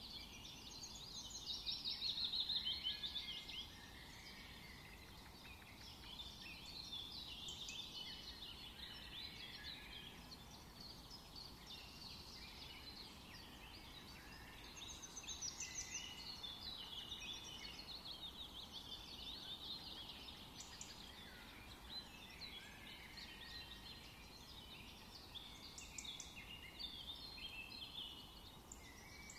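Many small birds chirping and chattering at once, busiest and loudest about two seconds in, then going on more softly.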